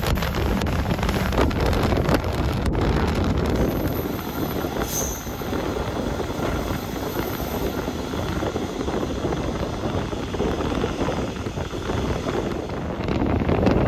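Rushing rumble and wheel noise of a passenger train running at speed, heard from an open carriage window. For the first few seconds an oncoming passenger train passes close alongside, adding a louder rush with sharp clicks. A brief high squeal comes about five seconds in.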